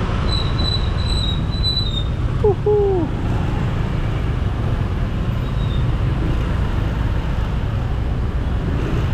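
Steady low rumble of a motorbike ride in slow, dense traffic, with a thin high squeal wavering for about two seconds near the start and a brief pitched sound bending up then down about two and a half seconds in.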